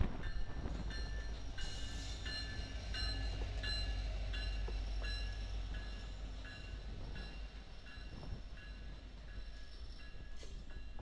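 VIA Rail passenger coaches rolling past behind a Union Pacific diesel locomotive: a steady low rumble of the cars on the rails. Over it a bell rings about twice a second, fading after the middle as the train moves on.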